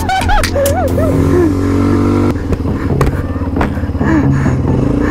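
An ATV engine running steadily while the quad is ridden over gravel. A short voice sounds over it in about the first second.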